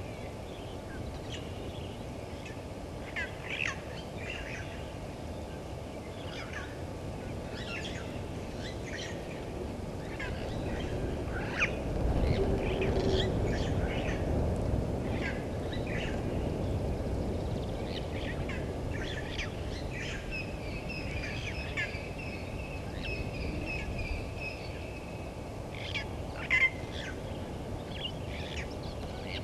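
Wild birds calling: many scattered short chirps and whistles, a longer steady call for about five seconds from some twenty seconds in, and two louder chirps near the end, over a low background hum.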